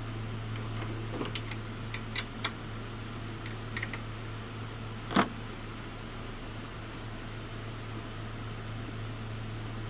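Light clicks and taps of hard plastic as the battery housing and its clips are worked loose by hand. The loudest is one sharp knock about five seconds in. A steady low hum runs underneath.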